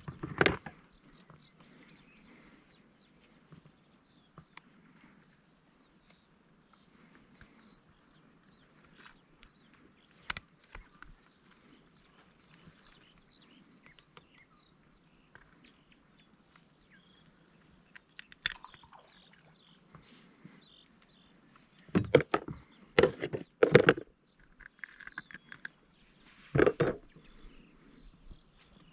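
Quiet outdoor ambience with faint scattered bird calls, broken by a cluster of loud knocks and clunks from gear being handled in a small fishing boat, and one more knock a few seconds later.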